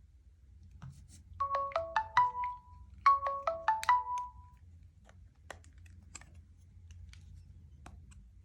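Mobile phone ringtone: a short rising melody of a few clear notes played twice with a brief gap between, followed by faint clicks.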